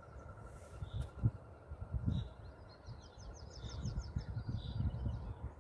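A small songbird singing a rapid trill of high, evenly repeated notes for about two seconds in the middle, with a few single high chirps around it, over low rumbling noise on the microphone.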